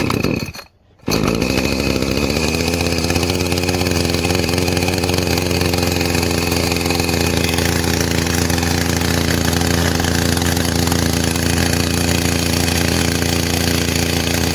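Brand-new Echo two-stroke chainsaw starting for the first time: a short burst as it is pulled, then the engine catches about a second in, its pitch climbs over the next couple of seconds and it settles into a steady, somewhat high-revving run just after the start.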